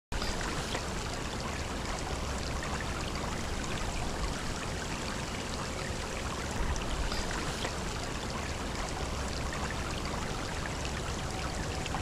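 Shallow creek water running over a rocky, pebbly bed, a steady wash of sound with no pauses.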